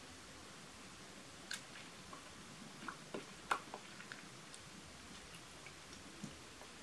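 Faint wet clicks and smacks of lips working lip gloss in as it is brushed on with a wand applicator. A handful of small clicks comes between about one and a half and four seconds in, and one more near the end, over quiet room hiss.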